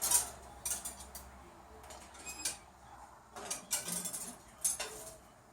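A scattered series of sharp clicks and short scraping rattles, some in quick clusters, like hard objects knocking and scraping together.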